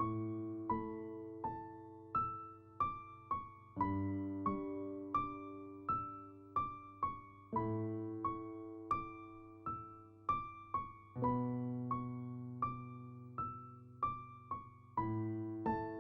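Gentle background music on a piano-like keyboard: a steady run of single notes, about two a second, each dying away, over low chords that change every few seconds.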